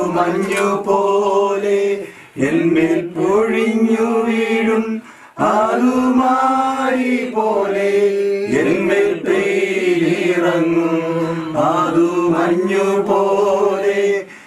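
Group singing of a slow hymn, led by a man's voice, in long held phrases of two to three seconds with short breaks between them.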